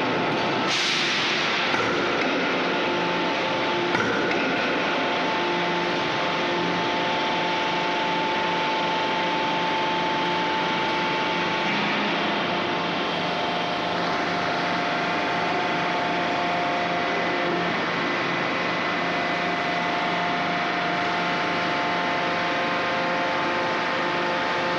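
Steady industrial din of a hydraulic forging line: machinery humming with several steady tones layered over constant noise, and a brief hiss about a second in.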